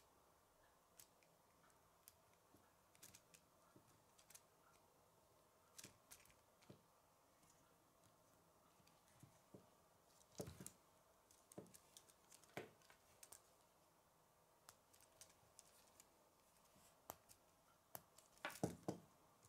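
Faint scattered clicks and rattles of K'nex plastic rods, connectors and wheels being handled and fitted together, with a few louder bunches of clicks, the busiest near the end.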